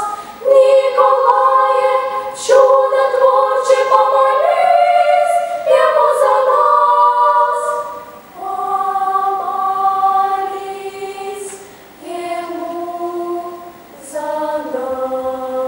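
Children's girls' choir singing unaccompanied in long held chords, phrase after phrase; the singing grows softer about halfway through, with short breaths between the later phrases.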